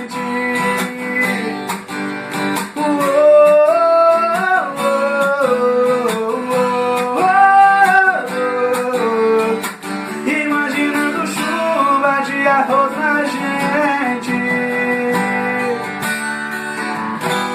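Song music led by acoustic guitar, plucked and strummed, with a melody line of long held notes sliding between pitches over the chords.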